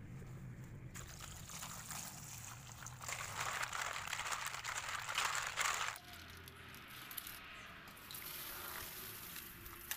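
Freshwater snails being washed by hand in aluminium pots of water: water sloshing and shells clattering as a hand and a ladle stir them, loudest from about three to six seconds in, then water being poured off.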